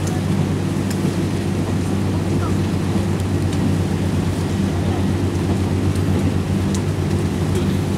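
KiHa 58 diesel railcar's DMH17H diesel engine running steadily under way, a low, even drone with the rumble of the moving train. A few faint clicks come through it.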